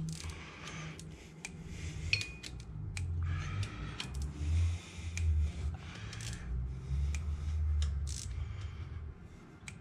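Adjustable torque wrench ratcheting and clicking as rocker cover bolts are tightened to about 40 inch-pounds: a string of irregular sharp clicks over a low rumble.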